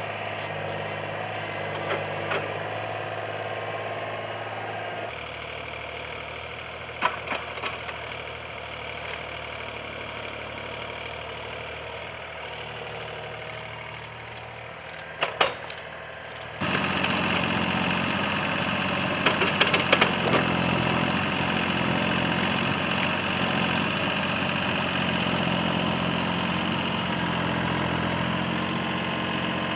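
Compact excavator's diesel engine running steadily. Its pitch drops about five seconds in, and a little past halfway it picks up, louder and higher. A few sharp knocks come in between.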